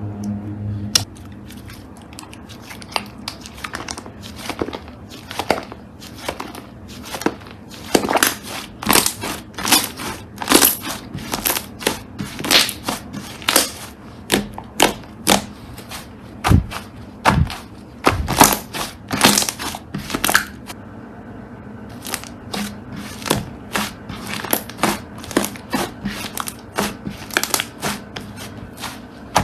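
Crunchy slime being squeezed and pressed, giving a dense, irregular run of sharp crunches and crackles.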